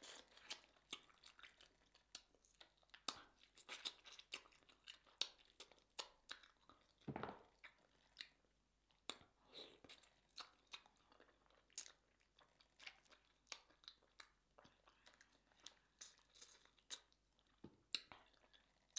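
Quiet, close-up eating sounds of a person chewing sauce-covered rotisserie chicken: a steady run of small wet clicks, smacks and crunches.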